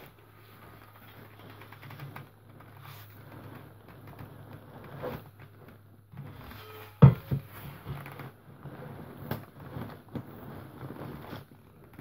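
Rustling and scraping of soiled denim and rubbish as a shovel pushes them down into a plastic wheelie bin, with a few sharp knocks; the loudest is about seven seconds in. A steady low hum runs underneath.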